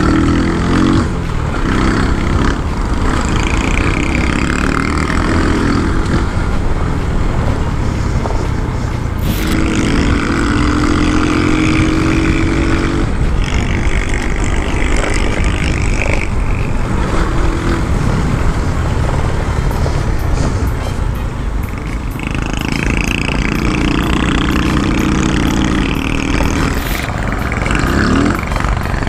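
A Sanya S50 110cc scooter engine running under way. Its note comes and goes over heavy wind rumble on the helmet camera's microphone.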